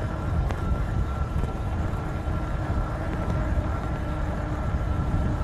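Steady low rumble of wind on the microphone and fat tyres rolling on pavement as a 750 W rear-hub e-bike climbs a steep hill under motor assist, with a thin, steady high whine running underneath.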